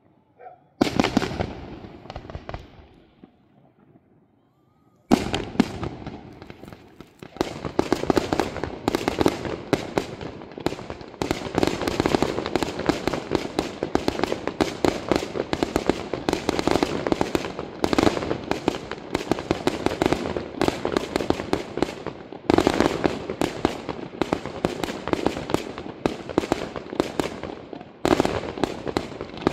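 Fireworks display: one sharp bang about a second in, then after a short lull a dense, unbroken barrage of rapid bangs and crackling starts suddenly about five seconds in, swelling again twice near the end.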